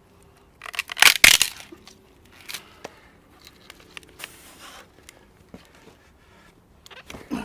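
Wood cracking and tearing apart with a loud crunch about a second in, as a knife batoned into a log splits it, followed by scattered small knocks and rustles.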